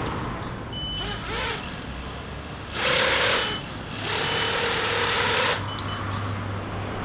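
Flypro XJaguar racing quadcopter's motors and propellers spinning up in short bursts on the ground. There is a brief rise and fall about a second in, then a louder burst near the middle and a longer, steadier one after it.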